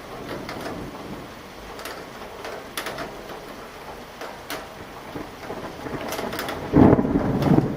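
Rain falling steadily, with scattered drops ticking sharply on a nearby surface. Near the end a loud clap of thunder breaks in suddenly and rumbles on.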